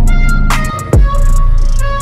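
Music with a heavy beat: deep kick-drum hits and high hi-hat ticks over sustained tones.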